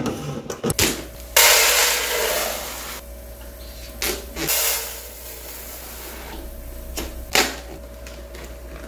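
Dry rice poured from a plastic bag into a clear plastic storage canister: a rushing hiss of grains that starts suddenly about a second and a half in and tapers off, followed by a few light knocks of handling the canister and bags, over a steady low hum.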